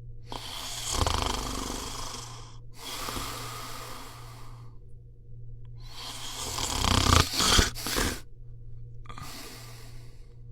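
A cat snoring in its sleep: four noisy, rasping breaths a couple of seconds apart. The loudest comes between seven and eight seconds in, with a few short sharp catches.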